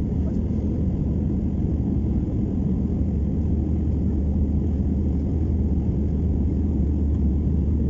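Steady low rumble of an Airbus A319 airliner heard from inside the passenger cabin: engine and airflow noise, even throughout.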